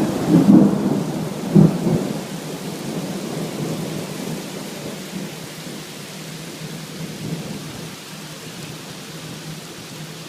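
Thunder during a rain storm: a loud clap with a sharp crack about a second and a half in, then a rumble that dies away over several seconds. Steady rain runs underneath.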